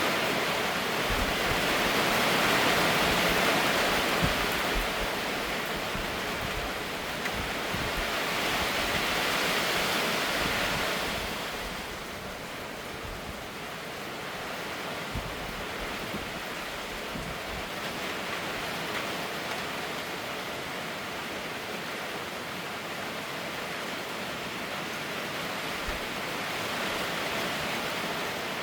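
Steady rain falling, an even hiss of water, louder for the first ten seconds or so and then easing to a softer, steady patter.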